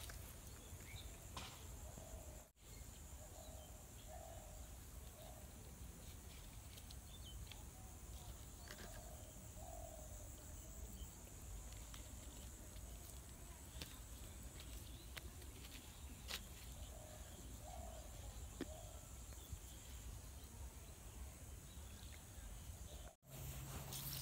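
Faint outdoor ambience: a steady low hum and high hiss, with a few faint short distant calls and scattered small clicks. The sound drops out briefly twice, about two and a half seconds in and near the end.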